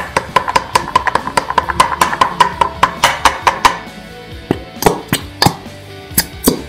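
Rapid, irregular knocking of a plastic glue bottle tapped against the side of a bowl to shake out the last of the glue, a pause about four seconds in before more knocks. Music plays steadily underneath.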